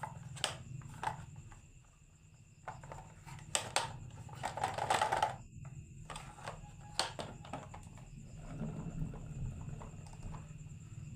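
Marbles clacking and rolling down a wooden HABA marble run: irregular sharp knocks, with a brief rattling rush about five seconds in.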